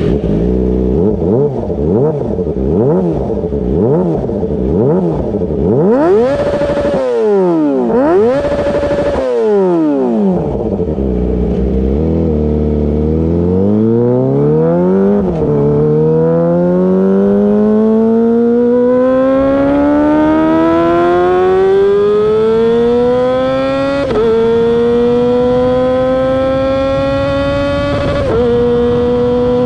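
Kawasaki ZX-25R's 250 cc inline-four through a LeoVince exhaust. It is first blipped rapidly, about once a second, then revved sharply high twice. It then pulls in one long rising run, with sudden pitch drops like upshifts about three-quarters of the way in and again near the end.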